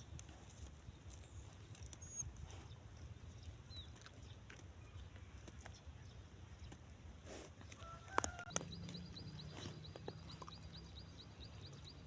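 Newly hatching chick peeping: a quick, even run of short high cheeps, about five a second, beginning just after a couple of sharp clicks about eight seconds in, over a low steady rumble.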